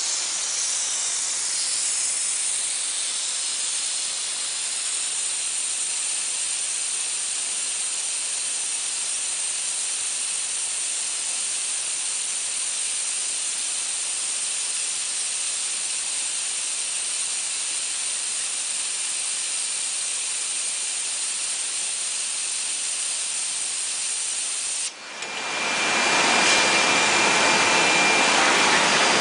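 Steady hiss of the gas burner flames on a radiator brass tank soldering machine. Near the end the sound drops out for a moment and comes back louder and fuller.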